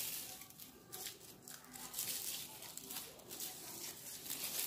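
Plastic raffia strands rustling and crinkling in irregular bursts as they are handled and twisted by hand into a spinning-top cord.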